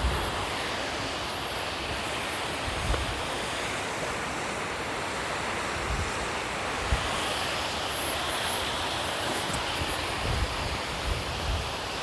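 Steady rushing of a waterfall, with gusts of wind buffeting the microphone now and then.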